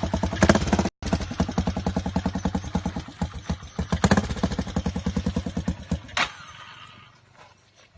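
A 150 cc motorcycle engine running at low revs with a fast, even firing beat on an uphill ride. There is a split-second dropout about a second in, and the engine cuts off abruptly about six seconds in.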